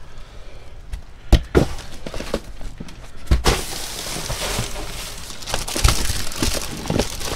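Hands rummaging through a cardboard box of discarded items: plastic bags and papers rustle and crinkle, getting busier about halfway through, with several sharp knocks as objects are shifted and set down.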